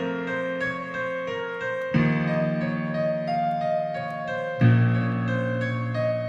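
Music: sustained chords over a strong low bass, with a new chord struck about every two and a half seconds.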